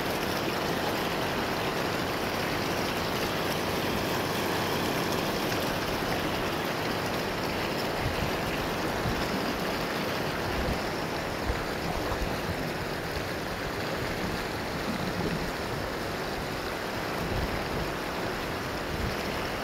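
Steady rush of a shallow river flowing over rocks, with one brief click about halfway through.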